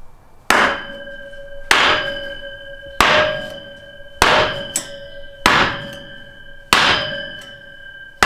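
A steel basketball pole slammed down end-first onto a wood block six times, evenly about one and a quarter seconds apart, each blow leaving the pole ringing. The blows seat the locking screw in its slot and lock the pole sections together.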